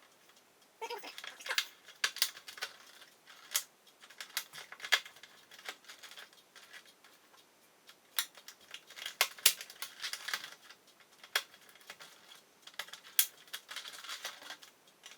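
Irregular clicks, snips and short scrapes of hand work on a fluorescent light fixture's wiring, as the wires feeding the lights after it are disconnected.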